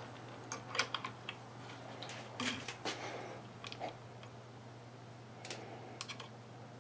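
Light, irregular metal clicks and taps as a steel punch and the hammer pin are worked into an AR-15 lower receiver to line up the holes.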